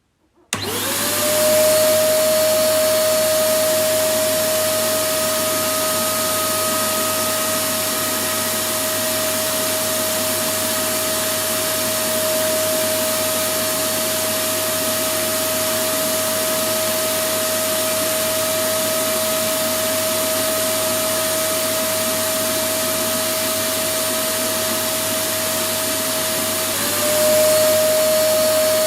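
Electric vacuum cleaner switched on about half a second in, its motor spinning up quickly into a steady whine over a constant rush of air. Near the end the whine dips briefly and climbs back up, a little louder.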